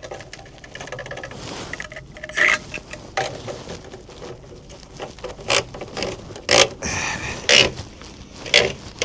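Handling noises: irregular knocks, scrapes and rustles, with several louder sharp clacks spread through.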